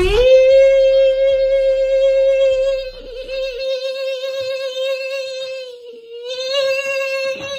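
One long note sung by a single voice, sliding up into it at the start and then held steady on one pitch, with a slight waver and a small dip about six seconds in.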